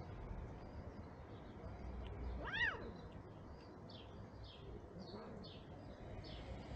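A cat meows once, a short call rising then falling in pitch about two and a half seconds in. Small birds chirp in the background, a repeated short chirp from about halfway on.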